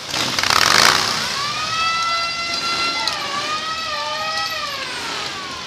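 A siren wails, holding a high pitch, then wavering and sliding down near the end. A loud rush of noise fills the first second.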